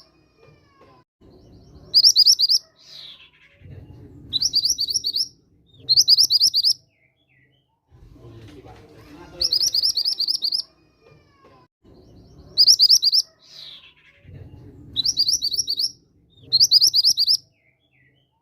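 Mantenan gunung bird singing: about seven short, high, fast-trilled song phrases, each under a second, separated by pauses with a low background murmur. It is a lure recording played to get other mantenan birds to answer.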